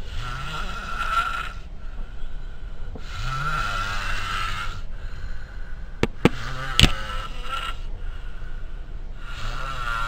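A person snoring heavily, one rasping snore about every three seconds, each with a low tone that rises at its start. A few sharp clicks come through a snore a little past the middle.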